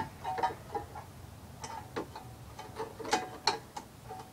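A wrench clinking on the nuts and bolts of a lawn tractor's pull-start pulley mount as they are tightened: irregular sharp metal clinks, each with a short ring.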